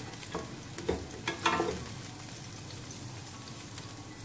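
Chopped garlic, onion and green chillies sizzling steadily in hot oil in an aluminium pot. A wooden spatula stirs them, scraping and knocking against the pot a few times in the first two seconds.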